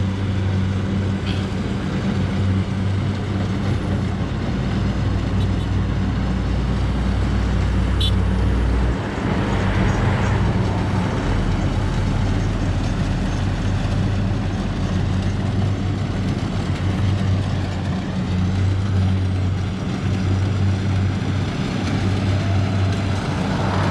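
Road traffic: a steady low engine drone, with a vehicle swelling past about ten seconds in.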